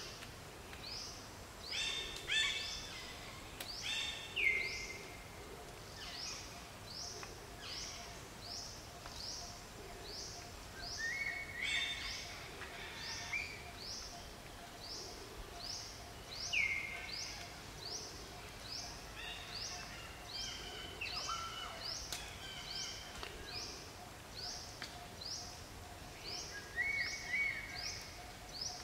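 Outdoor wildlife ambience: a high, rising chirp repeated evenly a little under twice a second, with scattered louder bird calls and a faint steady hum underneath.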